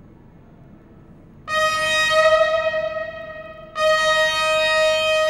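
Locomotive horn sounding two long blasts, each a single steady note with a sharp start. The first begins about a second and a half in, and the second comes just before four seconds and is still sounding at the end.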